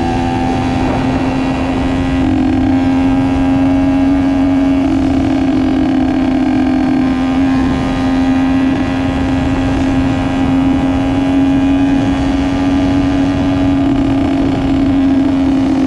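2001 Honda CR80's two-stroke engine running at a high, nearly steady pitch for several seconds, with slight rises and dips in speed.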